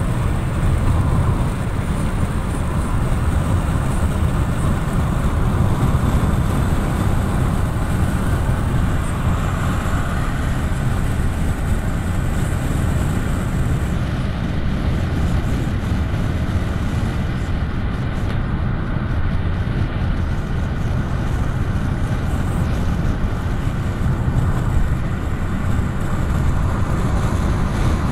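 Steady road noise heard from inside a moving car at highway speed: a constant low rumble of tyres and engine, with no sudden events.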